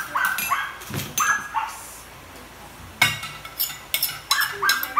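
A small dog barking in quick runs of short yaps, with a pause in the middle, while plates and spoons clink as they are picked up.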